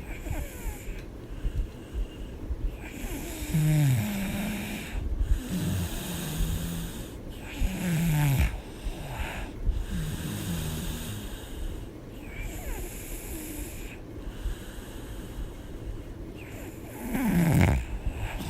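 A woman snoring heavily while asleep: low snores every couple of seconds, then a pause and one louder snore near the end.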